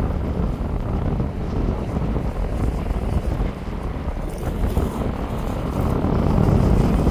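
Strong wind buffeting the microphone in steady gusts, a heavy low rumble.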